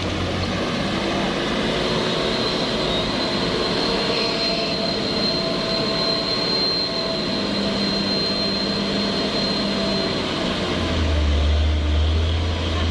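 Heavy truck's diesel engine running steadily, with a deeper low hum joining in about eleven seconds in.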